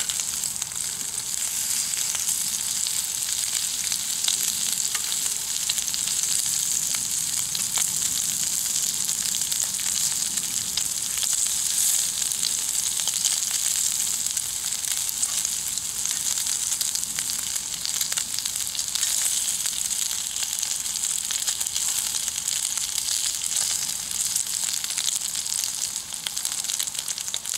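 Bacon frying in a pan over a wood fire: a steady sizzle with many small spitting pops.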